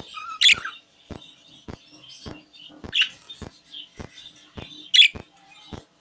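Pet budgerigars chattering softly in their cage, with three louder, sharp chirps about half a second, three and five seconds in. A faint, regular tick runs behind them about twice a second.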